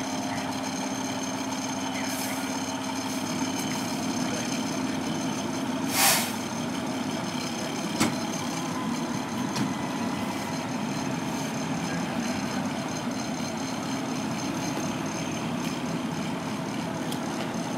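Truck engine idling steadily, with a short sharp hiss about six seconds in and a single click about two seconds later.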